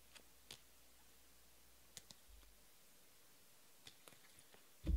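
A few faint, scattered clicks from trading cards being handled and shuffled, with a soft thump near the end.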